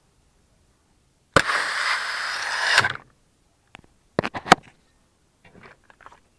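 Malfunctioning Glock pistol: a sharp click followed at once by a hiss lasting about a second and a half, then a quick run of sharp clicks and some fainter clicks near the end.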